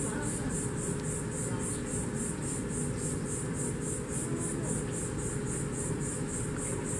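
Insects chirping in a steady, high-pitched pulse, about four chirps a second, over a low, steady rumble.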